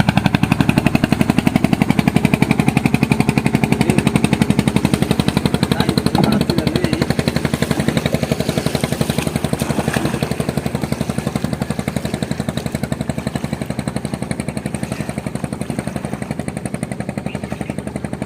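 A small engine chugging steadily with rapid, even firing pulses. It grows slowly fainter in the second half.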